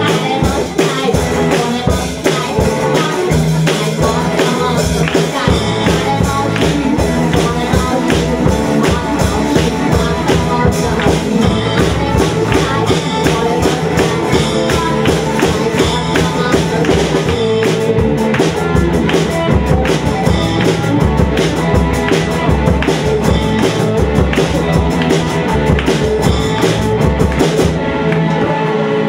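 Live rock band playing in a small room: electric guitar, bass guitar and drum kit with a steady beat, and a singer's vocals over them.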